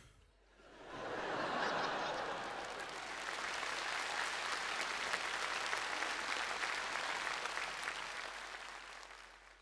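Studio audience applauding, swelling in about a second in, holding steady and dying away near the end.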